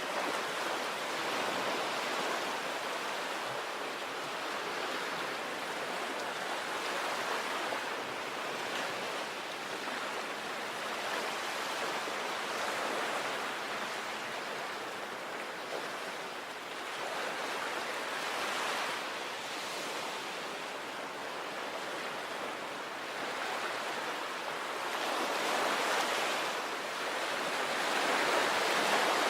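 Sea waves breaking and washing on the shore, a continuous rush of surf that swells and eases every few seconds, building louder near the end.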